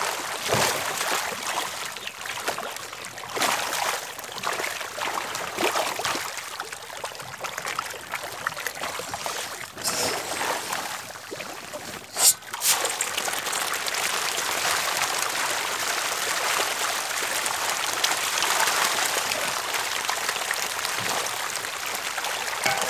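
Pond water splashing and churning as a dense shoal of red tilapia thrashes at the surface. The splashing comes in uneven bursts at first, with one sharp knock about twelve seconds in, then settles into a steady dense patter.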